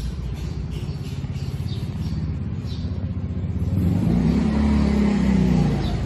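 A motor vehicle engine over a steady low rumble, swelling louder about four seconds in and easing off just before the end.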